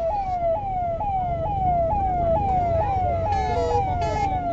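Fire engine siren sounding in a fast repeating falling tone, about three sweeps a second, over a low rumble.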